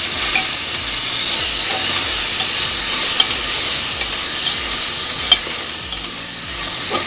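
Browned onion and ginger-garlic paste sizzling in hot oil in a metal pot while a spatula stirs and scrapes through it. There are a few light clicks of the spatula against the pot, the sharpest about five seconds in.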